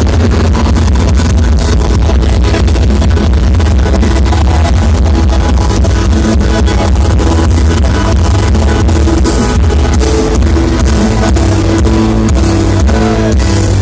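Loud music played through a big sound system, with heavy, pounding bass.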